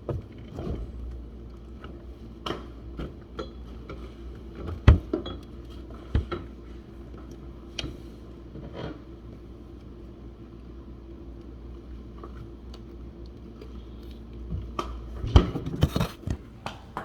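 Scattered clinks and knocks of glass bottles, jars and dishes being handled, with a quick cluster of knocks near the end, over a low steady hum.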